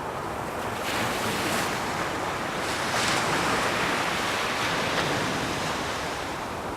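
Ocean surf breaking: a wave's rushing wash swells about a second in, is loudest around the middle, and eases off near the end.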